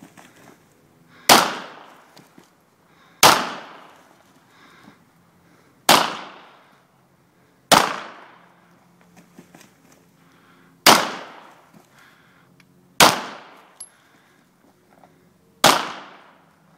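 Seven single handgun shots fired a few seconds apart as the shooter moves between positions, each a sharp crack with a short decaying echo.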